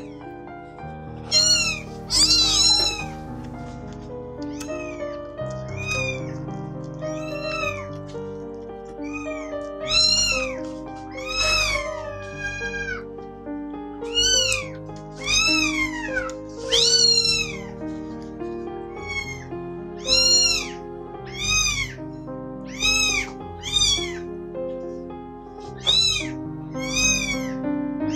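Three-week-old kitten mewing over and over, high thin cries that rise and fall in pitch, about one a second, over background music.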